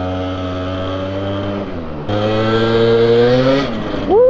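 Honda Vision Met-In scooter's small two-stroke AF18 engine heard from on board while riding. The note holds steady, dips briefly about two seconds in, then climbs under throttle and falls away, with a quick rev upward near the end. The owner says the engine is running either rich or much too lean at low revs.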